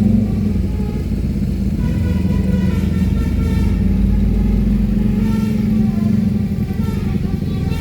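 A bus engine running with a steady low drone.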